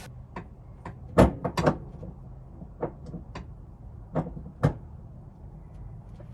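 Sharp metal clicks and clanks of a socket, extension and wrench being fitted and worked on a tight fuel strainer, about ten knocks at uneven intervals, the loudest about a second in, over a steady low hum.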